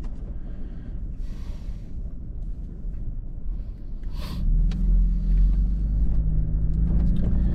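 Toyota Tacoma driving: a steady low rumble of engine and tyres that grows louder about four seconds in as the engine note comes up.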